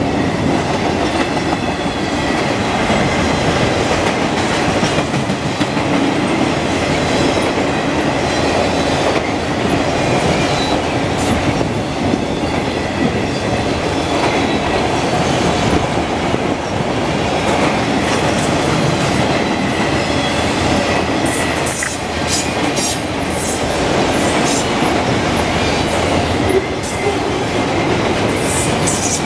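Freight train of auto rack cars rolling past at close range: a steady rumble of steel wheels on the rails with clickety-clack. Sharp metallic clicks come through in the last several seconds.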